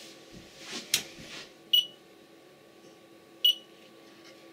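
Rigol DS2072A-S oscilloscope's beeper giving two short high beeps about a second and a half apart as the scope boots normally with its signal generator board removed. A click comes just before the first beep, and a faint steady hum starts up underneath.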